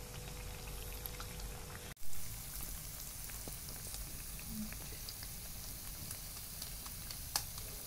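Urad dal and taro-leaf vadas deep-frying in a kadhai of hot oil: a steady sizzling hiss with faint scattered crackles. About two seconds in the sound breaks off sharply and comes back with a brief louder swell before settling into the same sizzle.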